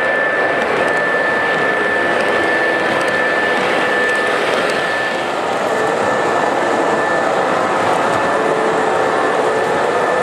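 Lionel O-scale model train running on the layout track: a steady rolling rumble with a constant high whine.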